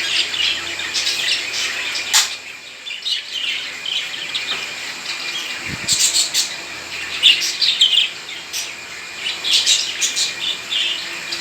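A flock of caged pet parrots chirping and chattering, many high, quick calls overlapping without a break. A single sharp click about two seconds in.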